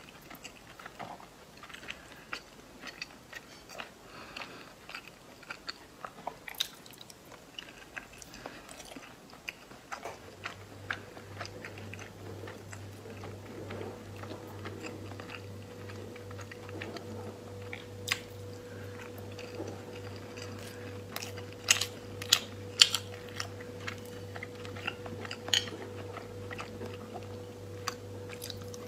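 Close-up eating sounds of salmon nigiri: chewing, wet mouth smacks and sharp clicks from chopsticks and mouth. A steady low hum comes in about a third of the way through and stays.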